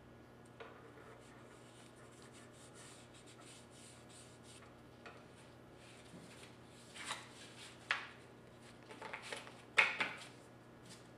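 Soft rustling and rubbing of stencil sheets and vinyl stencils being handled and pressed onto a gun part by hand, with a few louder crinkling rustles in the second half.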